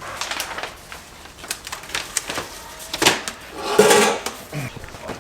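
Irregular clicks, knocks and scrapes of hand work on small metal parts. The loudest is a short rasping scrape about four seconds in.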